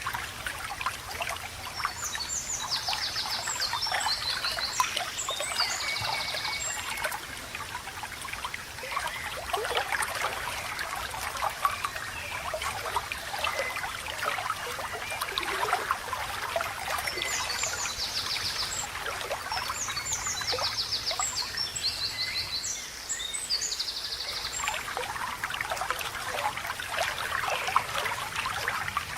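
Small stream babbling and trickling steadily. A songbird sings quick, high trilled phrases in two bouts, a couple of seconds in and again about midway through.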